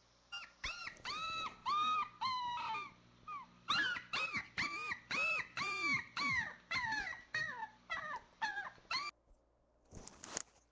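A dog giving a rapid run of short, high-pitched yelps, about three a second, each rising and falling in pitch. They stop about nine seconds in and a brief noisy rustle follows near the end.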